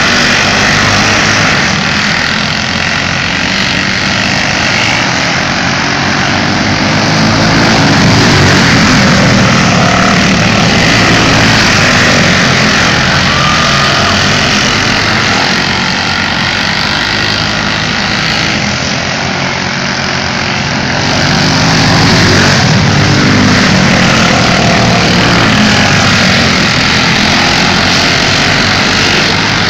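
Race car engines running flat out in a pack around a dirt oval. They grow louder as the cars pass close, about eight seconds in and again about twenty-two seconds in.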